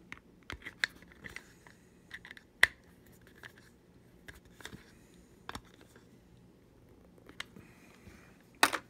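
Hands handling a plastic moon lamp: scattered light clicks and scratches of fingers on the plastic shell, the sharpest click about two and a half seconds in and a few quick clicks near the end.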